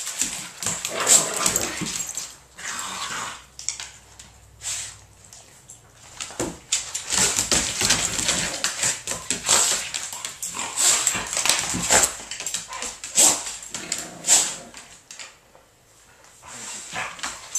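Two dogs play-wrestling: dog noises come in irregular bursts, with a short lull near the end. It is friendly play-fighting, not a fight.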